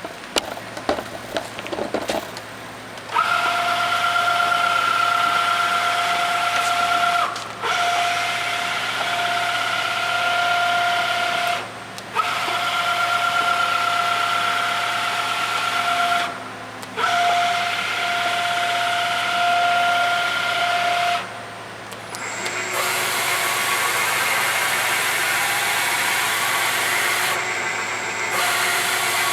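Top One three-axis CNC bed mill running. A few clicks come first, then a steady whine in four runs of about four seconds each, with brief stops between. Near the end it gives way to a noisier, steady running sound.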